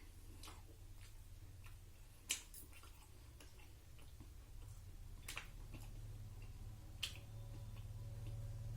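A few sharp clicks, the loudest about two seconds in and two more later, over a low steady hum that grows louder near the end.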